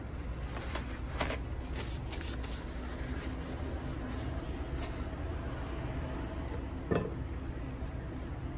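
Steady low background rumble with a few faint ticks and one sharper knock about seven seconds in.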